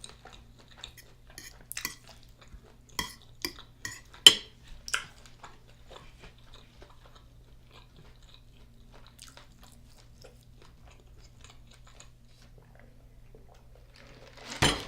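A person chewing and biting food close to the microphone: a mukbang meal of beef liver and onions with rice. There are several sharp clicks and smacks in the first five seconds, the loudest about four seconds in, then softer chewing over a faint low hum, and a louder burst of sound near the end.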